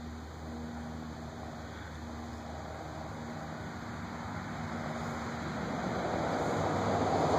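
Steady background noise with a faint low hum, swelling louder over the last few seconds.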